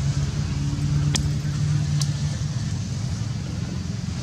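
A motor vehicle engine running steadily with a low hum that fades out about two and a half seconds in, with two sharp clicks about a second apart.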